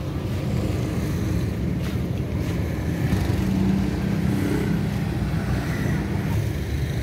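Traffic stuck in a jam: cars and motorbikes running while stopped or crawling, a steady low engine rumble, with one engine's hum standing out for a few seconds in the middle.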